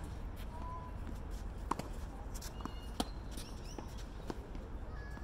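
Tennis ball impacts during a rally: a sharp pop about a second and a half in, a louder one about three seconds in, and a fainter knock near four seconds. Brief bird chirps sound in the background.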